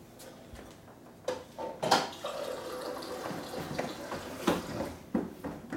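Water running from a kitchen tap, with several sharp knocks and clatters, the loudest about two seconds in.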